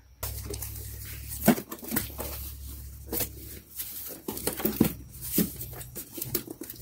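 A strapped cardboard box being handled, lifted and turned over: scattered taps, scuffs and rustles of cardboard and plastic strapping, over a low steady hum.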